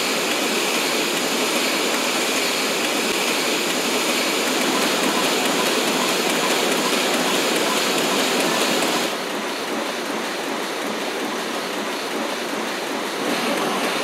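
Banknote printing-works machinery running: a steady, even rushing noise with no distinct beat. About nine seconds in, its upper hiss drops away, and it rises again shortly before the end.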